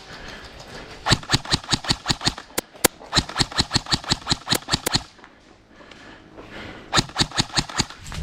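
Airsoft gun firing two rapid strings of shots, about eight a second: a long string of around four seconds, then a shorter one near the end.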